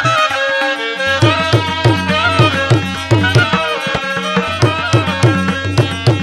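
Instrumental break in a Bangla Jhumar folk song: a melody line over a hand-drum rhythm that comes in about a second in, its deep strokes bending in pitch.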